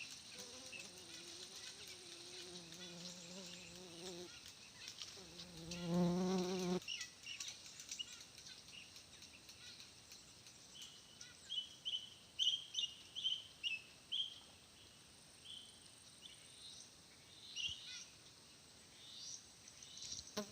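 A bird chirping in quick runs of short high notes, over a faint high buzzing haze. Earlier, a low humming tone with overtones sounds twice, the second time louder.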